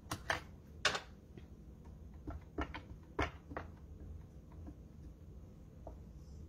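Light plastic clicks and taps as a clear acrylic stamp block is handled and tapped onto a plastic-cased ink pad, about ten scattered clicks with the sharpest in the first second.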